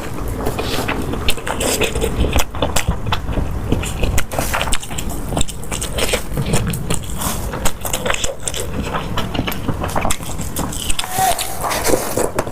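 A person eating close to the microphone, chewing with many short clicks throughout.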